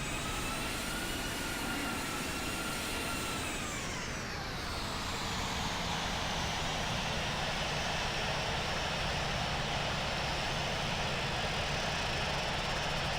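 Boeing 737 jet engines running with a steady rush and a high whine; the whine drops in pitch about four seconds in, then the rush holds steady.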